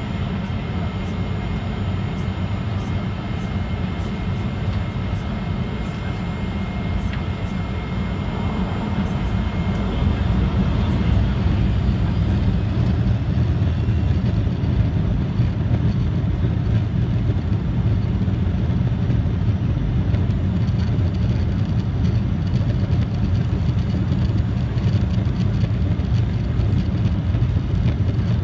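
Boeing 737-400 heard from the cabin over the wing on its takeoff roll: the CFM56 turbofan engines spool up about ten seconds in and the jet runs down the runway with a loud, steady low rumble. A thin high whine fades out before the spool-up.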